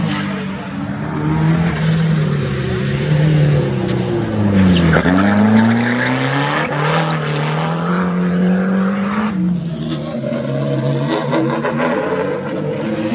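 Race car engines revving hard through a tight corner, with some tyre squeal. The engine note drops sharply about five seconds in and climbs again.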